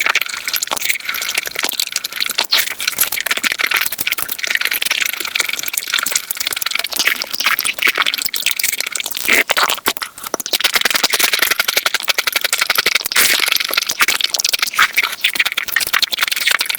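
Close-miked eating sounds played at high speed: chewing and mouth clicks run together into a dense, rapid crackle.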